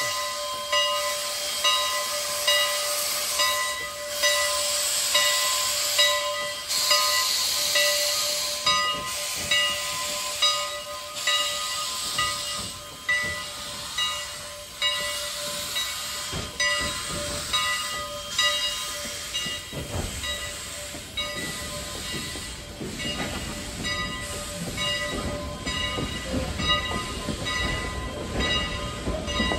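Strasburg Rail Road No. 89, a 2-6-0 steam locomotive, pulling out: steam hissing from the cylinders with a slow, uneven beat of exhaust chuffs about once a second, and steady ringing tones throughout. Over the last third a low rumble of the passenger coaches rolling past rises under it.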